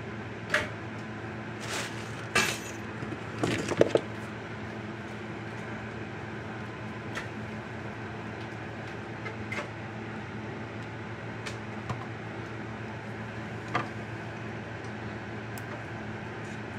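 Crimping pliers and a yellow insulated ring terminal handled on a workbench: a cluster of sharp clicks and knocks in the first few seconds, then a few faint ticks, over a steady low hum.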